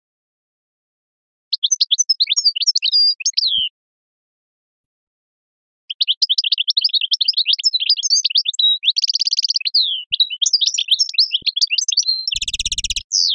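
A songbird singing an eastern-style (sharqi) song of quick high twittering phrases: a short phrase a couple of seconds in, then a long unbroken run from about six seconds, broken twice by a buzzy trill, the second, near the end, harsher and rattling.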